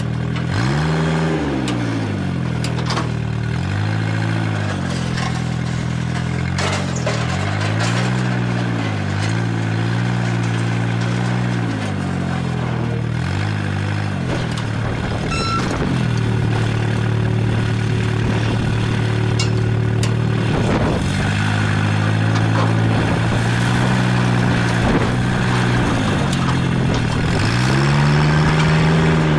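Old forklift's engine running as it moves a heavy pump jack frame, revving up and dropping back again and again, with a steady spell about halfway through.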